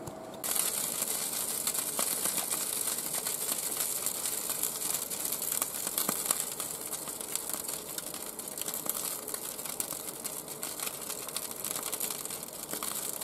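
Hot oil sizzling and crackling on freshly air-fried, flour-coated chicken thighs and legs: a dense, steady crackle of fine pops that starts abruptly just after the beginning.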